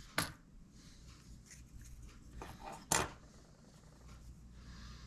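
Light clicks and handling from the opened plastic case of a 2019 Subaru Crosstrek key fob as the coin-cell battery is pushed out: a small click at the start, then a sharper, louder click about three seconds in, with faint rustling between.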